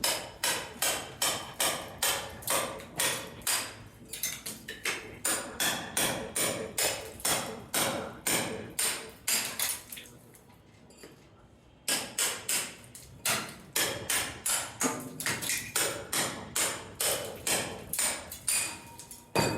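Hammer blows repeated at a steady pace of about two a second, each a sharp ringing strike. The blows break off for about two seconds just after the middle, then resume at the same pace.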